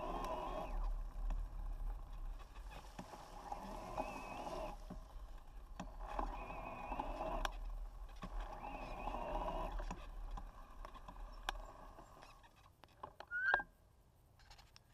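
Fat bike rolling over a grassy dirt trail: tyre and drivetrain noise comes and goes in stretches of about a second, with wind rumble on the handlebar-mounted microphone. It grows quieter near the end, where a short rising high-pitched sound is heard.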